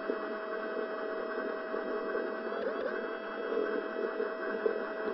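Running noise of an HO scale C&O 2-6-6-6 model steam locomotive hauling a long coal train up a grade: a steady mechanical whir with a constant hum, heard close up from on board the model. The hum dips briefly in pitch about three seconds in.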